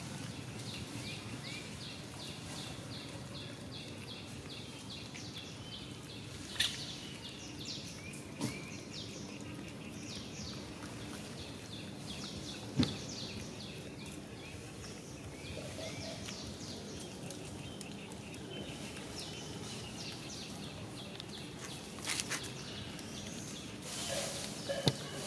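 Outdoor ambience: a steady background hiss with runs of short, high chirps repeating several times a second, and a few sharp clicks scattered through.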